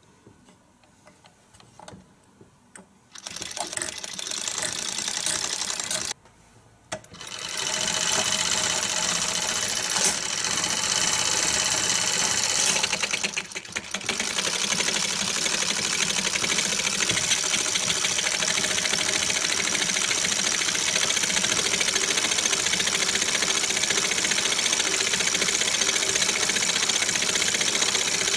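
A 1920s Pathé 9.5mm home-movie projector, hand-cranked, running film with a fast, even mechanical clatter. It starts about three seconds in, stops for about a second around six seconds, then runs on with a short dip near the fourteenth second.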